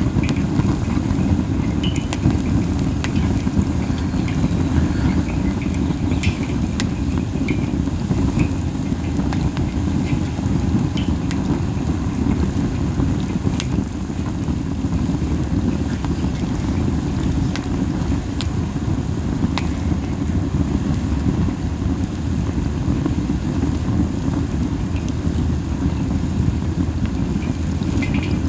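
Pine cones burning in a campfire: a steady low rushing and buffeting from the strong flames and wind, with light, scattered crackles and pops.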